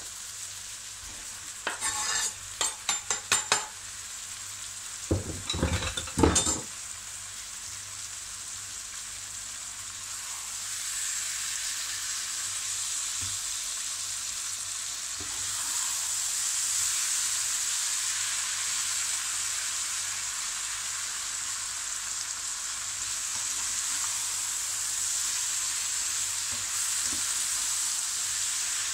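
Chopped tomatoes, peppers, zucchini and onions sizzling in oil in a large nonstick frying pan, with a plastic spatula knocking and scraping against the pan in two short bursts of stirring in the first few seconds. The sizzling is steady and grows louder after about ten seconds.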